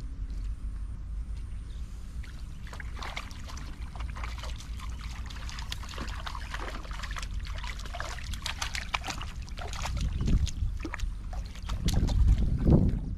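A hooked fish splashing and thrashing at the water surface against a long hand pole, an irregular run of small splashes beginning a couple of seconds in. A steady low rumble runs underneath and swells twice near the end.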